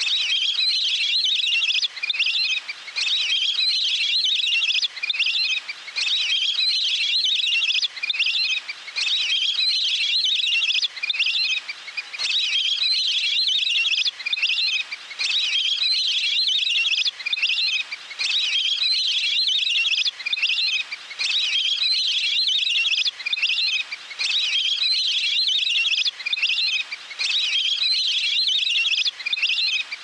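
Flock of teal giving high, rapid chirping whistles without pause. The same stretch of about three seconds repeats over and over, as in a looped recording.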